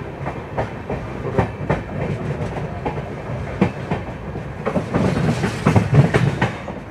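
Passenger train wheels clattering over rail joints and points as the coach rolls through a station yard, heard from an open coach doorway over a steady low rumble. The clicks come irregularly and grow louder and busier about five seconds in.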